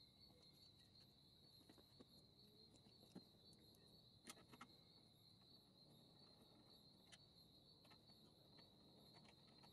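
Near silence, with crickets trilling faintly and steadily and a few faint clicks.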